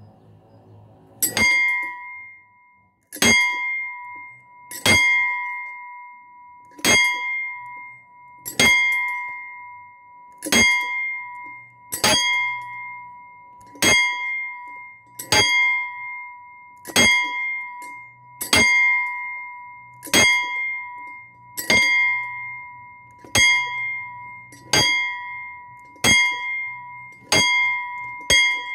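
A ringing metal bell-like object struck at a steady pace, about once every 1.5 to 2 seconds. Each strike has a sharp attack and then a clear tone that rings on into the next one. The strikes start about a second in and come a little closer together near the end.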